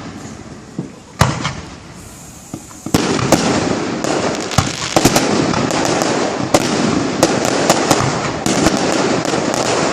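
Aerial fireworks display: one loud bang about a second in, then from about three seconds a dense, continuous barrage of crackling bursts and sharp reports.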